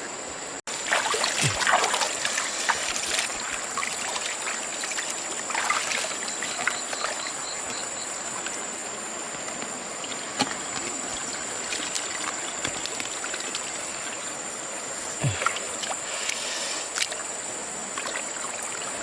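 Water splashing and trickling, with irregular splashes that are busiest in the first few seconds and again near the end.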